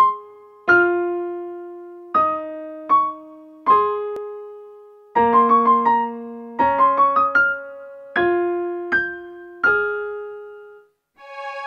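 Background piano music: slow single notes and chords that ring and fade, with a run of quick notes in the middle. Near the end the piano stops and a steady held chord begins.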